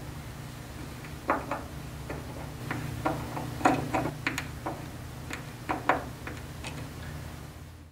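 Black wood screws being threaded into pre-drilled holes in the telescope base: a series of small, irregularly spaced clicks and ticks over a steady low hum.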